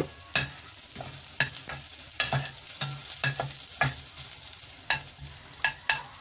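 Garlic, ginger and onion sizzling in oil in a stainless steel pot while a metal spoon stirs them, clicking and scraping against the pot at irregular moments over a steady hiss.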